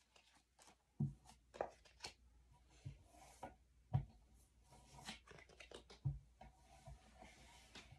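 Cards and paper being handled and sorted: scattered light taps and knocks with soft rustling between them, the sharpest about a second in and about four seconds in.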